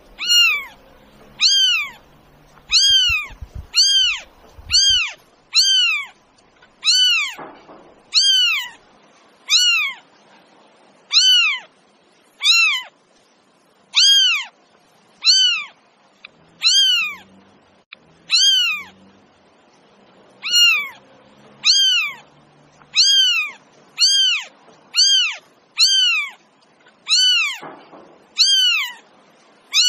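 Domestic cat meowing again and again: short meows that rise and then fall in pitch, about one a second, each much like the last.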